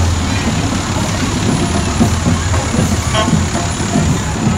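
Fire truck's diesel engine rumbling steadily as it rolls slowly past at close range, with one brief high tone about three seconds in.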